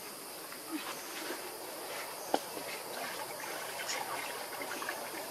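Steady hiss of insects, with scattered faint rustles and one sharp click a little over two seconds in.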